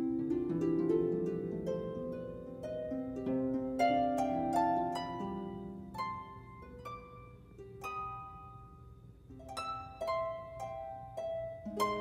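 Background music: a gentle melody of plucked, harp-like notes, each ringing and fading.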